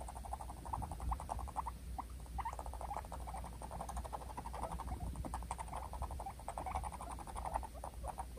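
Guinea pigs rumbling in a dominance fight: a rapid pulsing buzz that comes in repeated bouts, with a few sharper clicks among them.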